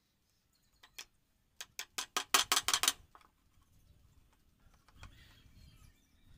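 A small hatchet striking hardwood in quick chopping cuts: two light knocks, then a fast run of sharper knocks that ends about three seconds in, followed by faint scraping of the blade on the wood.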